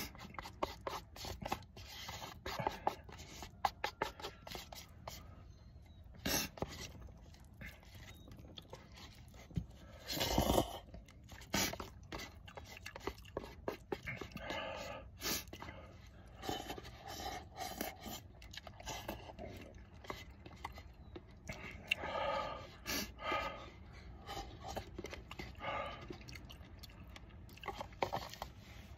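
Wooden chopsticks scraping and clicking against the inside of a paper instant-ramen cup, with slurping and chewing as the last noodles and broth are eaten. The clicks are light and frequent, with a few louder slurps.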